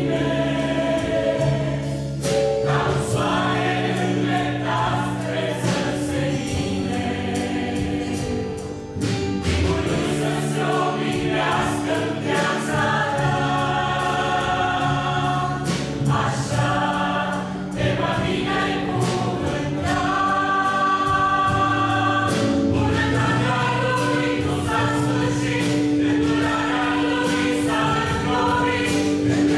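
Mixed church choir of women's and men's voices singing a Romanian worship song in harmony, with guitar accompaniment.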